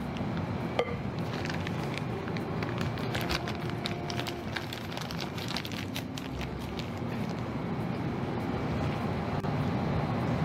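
Soft rustling of a plastic piping bag and scraping of a spatula as meringue is spooned into the bag, with scattered small crinkles over a steady background hiss.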